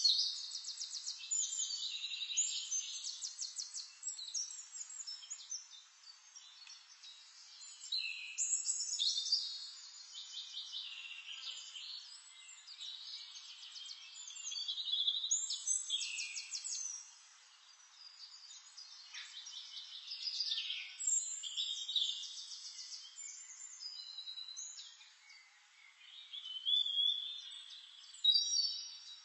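Birdsong: phrases of rapid trills and whistled notes, each lasting a few seconds, repeating about every six seconds.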